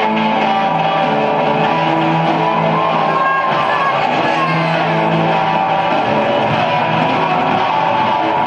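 Live rock band playing loud, led by a Les Paul-style electric guitar through a Marshall amplifier, with long held notes.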